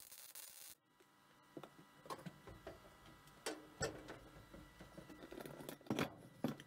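Welding arc hissing and crackling for under a second on steel tubing, then cutting off sharply. After it, scattered clicks and knocks of metal parts and tools handled on a wooden workbench, loudest about six seconds in.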